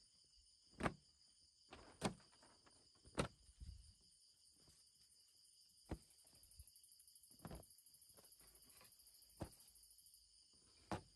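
Night chorus of crickets and other insects, a steady high trilling, with a higher insect band joining for a few seconds in the middle. About seven sharp knocks and taps come at irregular intervals, the loudest in the first few seconds.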